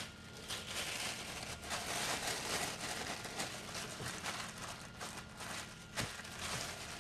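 Clear plastic bag crinkling and rustling as hands open it out and work inside it, with a short knock at the start and another about six seconds in.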